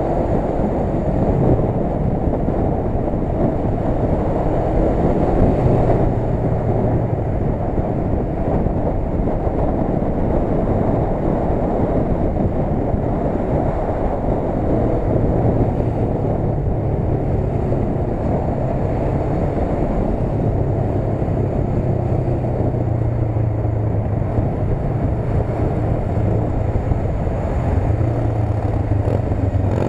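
Motorcycle running at road speed in traffic, heard from a camera mounted on the bike: a low engine hum under a dense rush of wind on the microphone. The engine hum stands out more from about halfway through.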